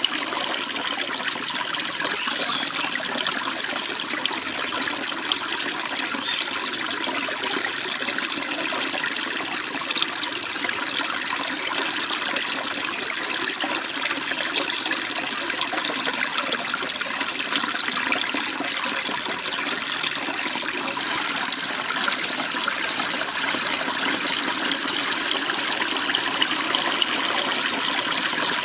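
Stream water babbling and splashing, a steady rush that is mostly bright and hissy with little low rumble.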